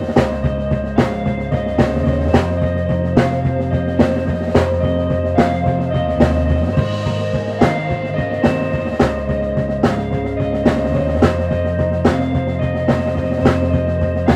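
Live band playing: a drum kit hitting a steady beat under sustained electric guitar chords and bass.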